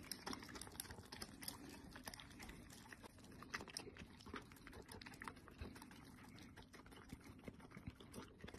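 Faint, quick wet clicks and smacks of a golden retriever chewing and lapping up noodles and diced meat.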